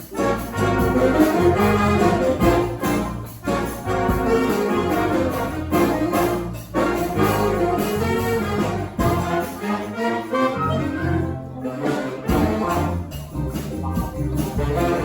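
A live brass band with percussion playing an up-tempo tune, horns and trombones over a driving bass line. The low bass part drops out for about a second and a half around two-thirds of the way through, then comes back in.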